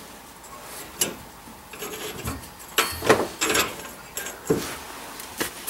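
Sandpaper rubbing on a water pipe in a few short, irregular scraping strokes, smoothing the pipe so the compression ring and valve will slide on.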